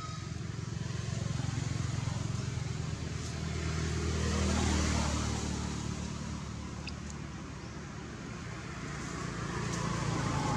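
A motor vehicle's engine running, growing louder about four to five seconds in and again near the end, as if passing by.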